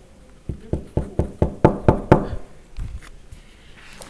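A finger knocking on the glass of a metal-plastic (PVC) window: a quick run of about ten sharp knocks, then one or two softer ones.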